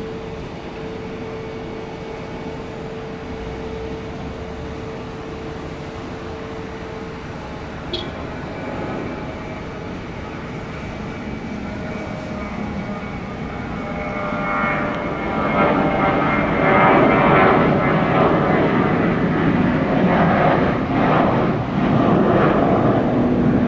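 Jet airliner engines, a steady hum that swells strongly about two-thirds of the way in as the aircraft comes close, then stays loud.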